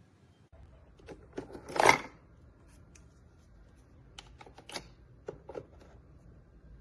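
A series of light clicks and knocks, the loudest just before two seconds in and a cluster more near the middle, over a faint low background hum.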